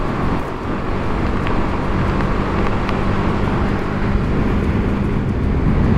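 BMW G310GS single-cylinder engine running at a steady cruise, its note holding one pitch, under a constant rush of riding noise from travelling at speed.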